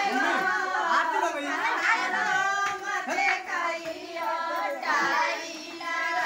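A group of women and girls singing a traditional wedding song together, several voices overlapping, with talking mixed in.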